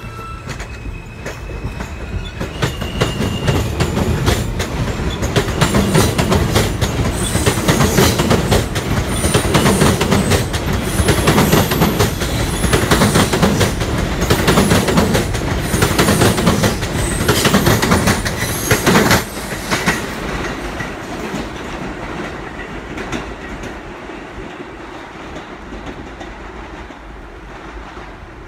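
NYC Subway R160 train pulling out of a station past the platform. The rumble builds as it gathers speed, with a dense run of wheel clicks over rail joints as the cars go by. About nineteen seconds in, the sound drops suddenly as the last car clears, then fades away.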